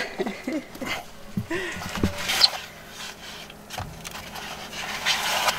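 Rustling and light scraping of clothing and materials as hands work in a cramped space, with a couple of brief murmured voice sounds in the first two seconds.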